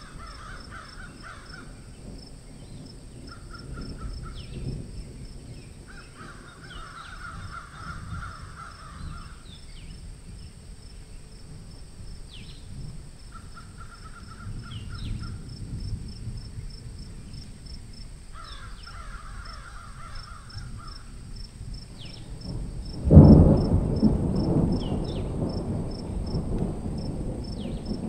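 Birds calling in about five bursts of rapid repeated notes, each lasting one to three seconds, over a steady high insect ticking. About four-fifths of the way through, a loud low noise starts suddenly and carries on.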